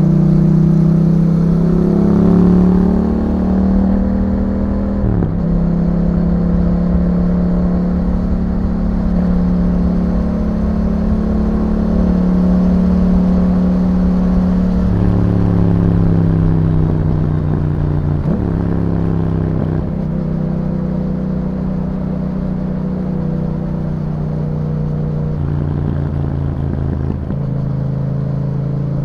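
Yamaha MT-07's parallel-twin engine through an Akrapovic exhaust, heard while riding. The note rises over the first couple of seconds, then holds mostly steady at cruising revs, broken by several sudden changes in pitch, as at gear changes or throttle changes.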